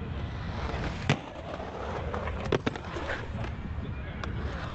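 Open-air skatepark ambience: a steady low rumble with several sharp clacks on concrete, the loudest about a second in and a quick pair about two and a half seconds in.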